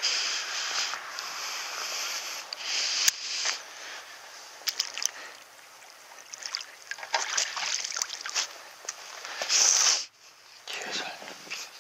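Water splashing and sloshing as a landing net is dipped and swished in the water, in several bouts of a second or two.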